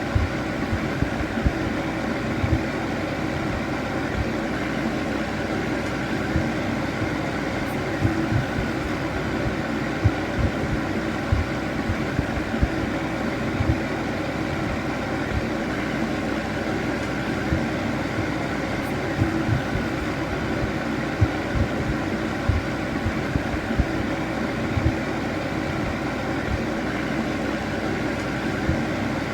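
Electric fan heater running steadily, a continuous whirr of air with a motor hum, broken by irregular low knocks every second or so.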